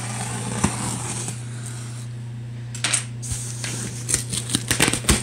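Small hard objects clinking and rattling on a table as it is cleared off, scattered clicks that grow busier toward the end, over a steady low hum.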